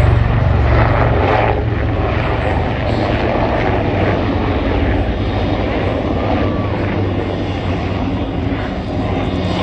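Loud, steady rumble of low-flying military aircraft, easing slightly in the second half.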